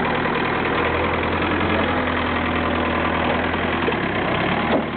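Perkins four-cylinder mechanically injected diesel engine of a JCB 208S skid steer backhoe running steadily near idle, with a short sharp knock near the end.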